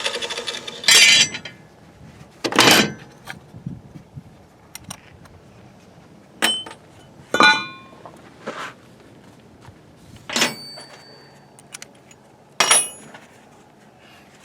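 A string of sharp metallic clanks and clinks, about six spaced a second or two apart, several ringing briefly: metal tools and parts being set down and handled at a workbench.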